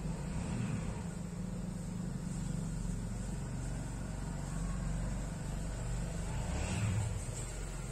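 A motor vehicle engine running steadily with a low rumble, swelling slightly near the end, under a steady high-pitched hiss.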